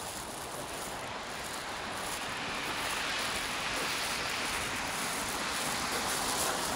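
A tram rolling past on its rails: a steady rushing noise that swells about two seconds in.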